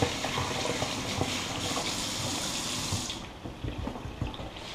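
Kitchen tap running into a sink while hands are washed, shut off about three seconds in; a few light knocks follow.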